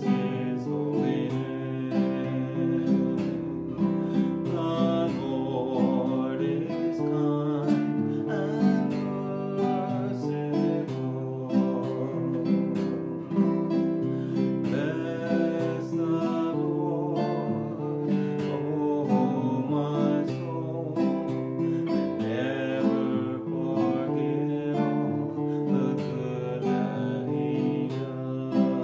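Nylon-string classical guitar strummed and picked in a steady rhythm, with a man singing along.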